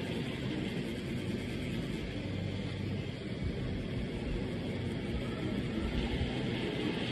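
Pen-style tattoo machines running with a steady, even hum.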